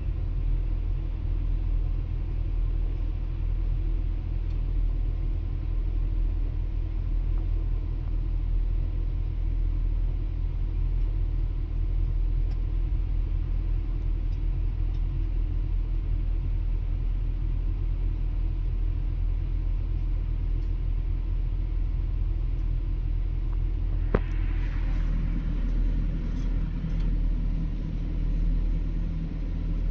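Excavator's diesel engine running steadily at a constant low hum. About three-quarters of the way through there is one sharp knock, followed by a couple of seconds of rougher scraping noise.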